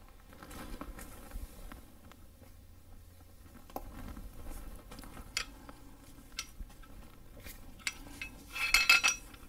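Scattered light clicks and metallic clinks of tools and engine parts being handled, with a quick run of louder clinks near the end.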